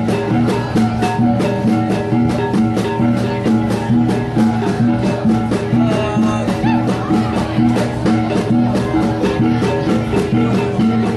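Traditional Sabahan gong ensemble playing sazau music: several tuned brass gongs ringing in a steady, quick, interlocking beat.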